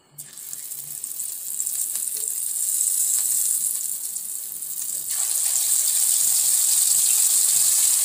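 Hot cooking oil sizzling in an iron kadai, heating for frying fish: a steady high hiss that starts suddenly and grows louder about five seconds in.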